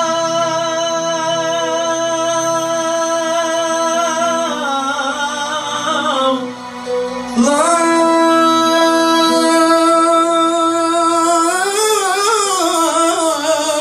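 Tallava singing: a man's voice, amplified through a microphone, holds long notes that break into wavering ornamental runs, once near the middle and again near the end. An electronic keyboard plays along.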